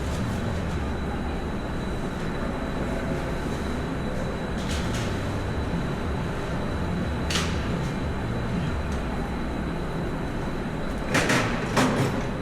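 Steady low rumble of workshop background noise, with a few light clicks and two louder metallic clanks near the end as clutch parts and tools are handled.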